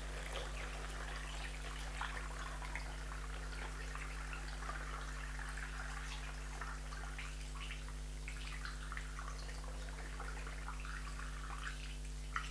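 Home-brewed bitter being poured slowly from a jug through a funnel into a bottle, a faint trickle and fizz of the beer as it fills. A steady low electrical hum runs underneath.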